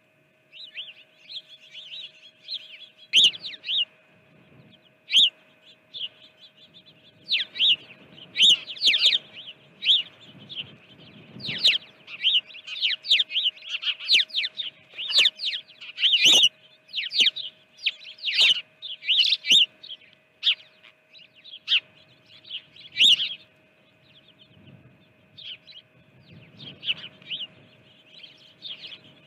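Small songbirds chirping and twittering, many short calls overlapping, thickest through the middle and thinning near the end, over a faint steady hum.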